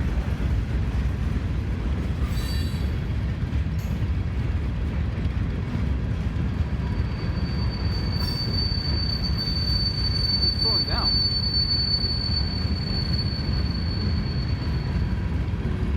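Freight train cars rolling past with a steady low rumble as the train slows; about seven seconds in, a thin high wheel squeal sets in and holds steady until near the end.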